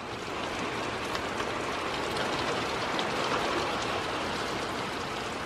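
Heavy rain pouring steadily, with a few drops ticking close by.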